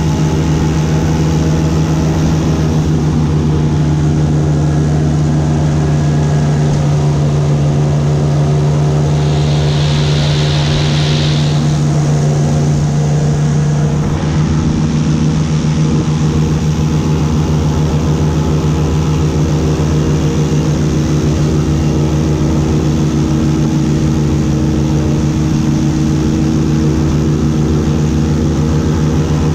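Airboat's engine and propeller running loud and steady, a constant drone with a brief hiss about ten seconds in.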